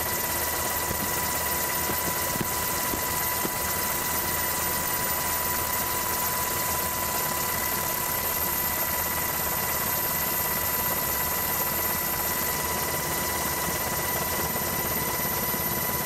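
Steady engine drone with a constant high whine, even in level throughout.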